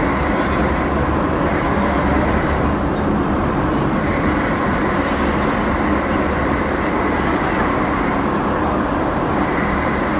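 London Underground Jubilee line train (1996 tube stock) running at speed through a tunnel, heard from inside the carriage: a loud, steady rumble and roar of wheels on rail, with a high whine that fades in and out.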